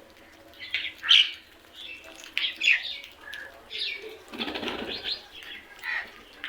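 Crows calling with harsh, repeated caws, about five across a few seconds. Around four and a half seconds in comes a brief noisy rush of wingbeats as a bird takes flight.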